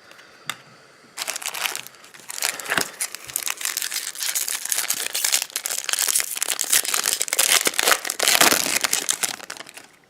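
Foil trading-card pack wrapper crinkling as it is torn open and handled, a dense crackling rustle lasting about eight seconds.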